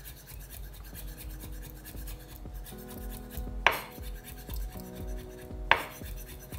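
Chef's knife chopping green onion on a wooden cutting board: a quick run of light taps, with two sharper knocks, one about halfway through and one near the end.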